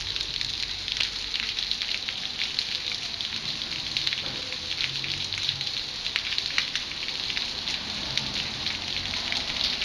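Rain falling steadily: an even hiss with many sharp ticks of individual drops landing close by.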